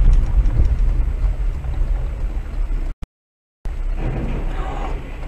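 Steady low rumble of a car's engine and road noise, picked up by a dash cam inside the car. It cuts out completely for about half a second around three seconds in.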